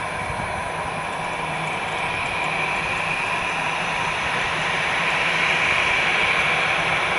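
Airbus A320-216 jet engines (CFM56-5B) running at taxi thrust: a steady whine and rush with a low hum, growing a little louder about five seconds in as the airliner taxis toward the listener.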